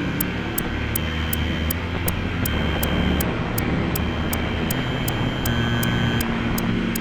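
Improvised electronic noise music from software synthesizers: a low droning hum under a hissing wash, with short held tones fading in and out and a steady pattern of high clicks about three times a second.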